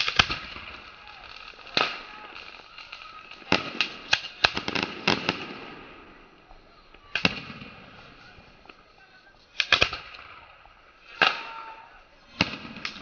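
Fireworks launching and bursting: sharp bangs at irregular intervals, with a quick volley of several reports in a row about four seconds in, and crackle between them.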